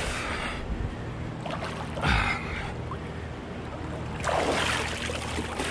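Splashing and sloshing of river water at the waterline as a swimmer strokes through deep current. It comes in three bursts, at the start, about two seconds in and near the end, over a low steady hum.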